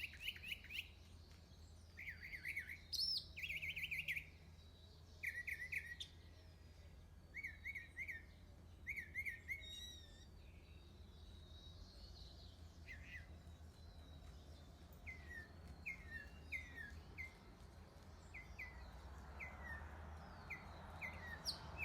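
A small songbird chirping over a steady low hum. In the first half it gives quick rattling runs of notes; after that it gives single short down-slurred chirps about every half second to a second.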